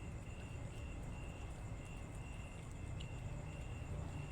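An insect chirping outdoors in a steady high pulsing rhythm, about two chirps a second, over a low background rumble.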